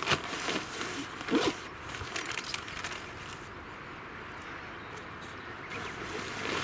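Rustling and crinkling of a nylon tent carry bag and the packed tent inside it being handled, busiest in the first couple of seconds, then softer. A brief squeak about a second and a half in.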